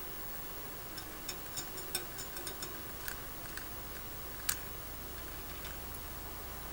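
Budgerigar making a quick run of small clicks and ticks, then one sharper click about four and a half seconds in.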